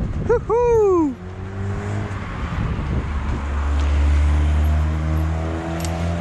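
A car driving past on the adjacent road, its engine hum swelling and then fading. About half a second in, a short loud tone slides down steeply in pitch.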